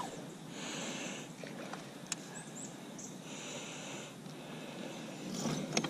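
Two soft breaths through the nose close to the microphone, each about a second long, with a faint click between them and a sharper tick near the end.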